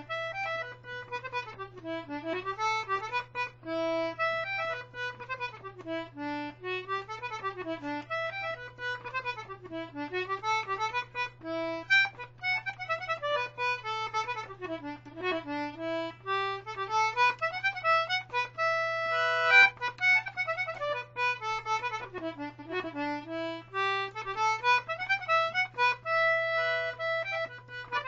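A 19th-century George Jones Anglo concertina in G/D playing a reel: quick runs of reedy notes rising and falling in a steady, lively rhythm.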